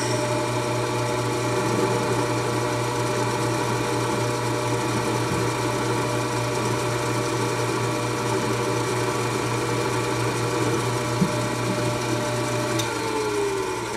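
Milling machine spindle running steadily with a multi-tone machine whine while a carbide end mill plunges into the steel front receiver ring of a 1917 Enfield rifle to re-cut a scope base hole. About a second before the end the motor is switched off and its pitch falls as it spins down.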